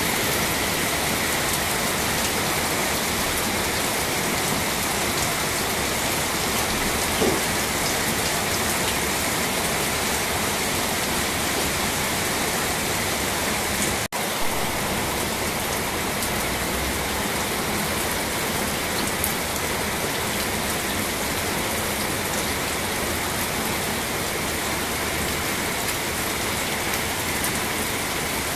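Steady rain falling, an even hiss that holds its level throughout, broken once about halfway by a momentary gap.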